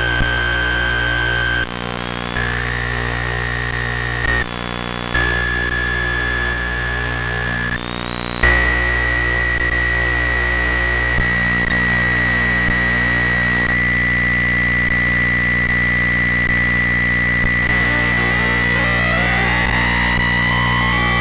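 Harsh electronic noise drone: dense layered steady tones over a low hum, cutting abruptly between pitch settings several times, then settling on one held high tone. Near the end, several tones glide up and down.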